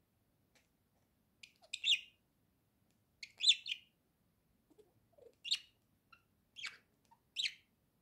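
Budgerigar chirping: five short, high chirps a second or so apart.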